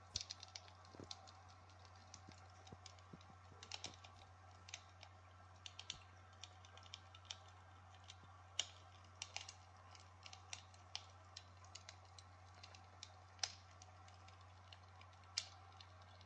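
Irregular, sparse crackling clicks like a wood fire's crackle, some sharper than others, over a steady low hum.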